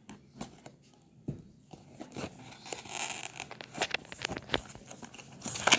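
A small blade slitting the seal stickers on a cardboard smartphone box, then the lid sliding off: scratchy scraping and tearing with light clicks of the cardboard, busier after about two seconds, with the loudest scrape near the end.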